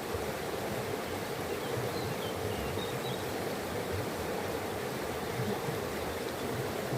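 Running water with a steady, even rush. A few faint, short, high bird chirps come between about two and three seconds in.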